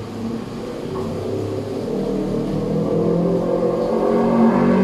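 A motor vehicle's engine that grows louder over a few seconds, peaks near the end and then fades, over a steady low hum.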